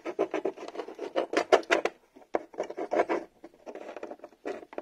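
Plastic RC truck body shells being handled: a quick run of light taps, clicks and rubs, with a brief pause about two seconds in.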